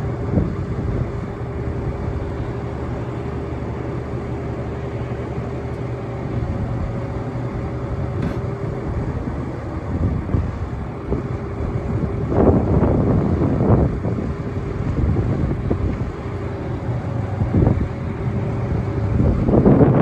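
Cummins 6.7L turbo diesel of a 2015 Ford F750 dump truck running steadily at idle, with louder rushes of noise a little past the middle and near the end.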